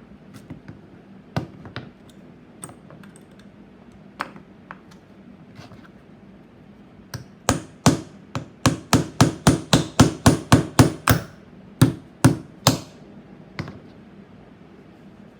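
Hammer blows on metal as a soldering bit is beaten into shape: a few scattered light taps, then about halfway through a fast, even run of strong strikes, roughly three a second for about four seconds, followed by a few slower blows.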